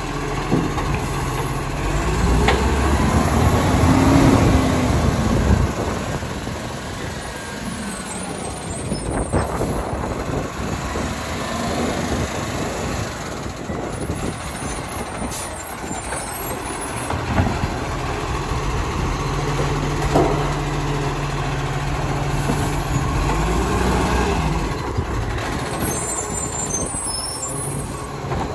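Side-loader garbage truck's diesel engine running, speeding up while the automated arm lifts and empties a wheelie bin, with a few sharp knocks. The engine swells again later as the truck moves on and stops.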